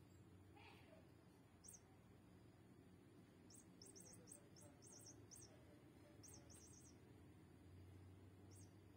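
Near silence with a low steady hum, broken by faint, very short high-pitched chirps, singly and in quick runs of several, about fifteen in all.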